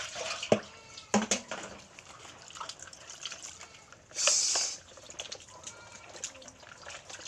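Hands washing boiled horse meat in a plastic basin of water: small wet splashes, drips and clicks of meat and water, with a brief louder splash about four seconds in.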